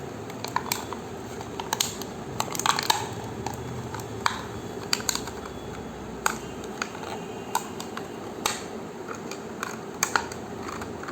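Empty ice-cream cup being crushed and crinkled close to the microphone: irregular sharp crackles and clicks, with a denser, louder cluster about three seconds in.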